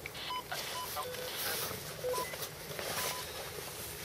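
Short electronic beeps from a small buzzer, mostly at one pitch with a couple at a lower pitch, coming at irregular intervals over soft rustling.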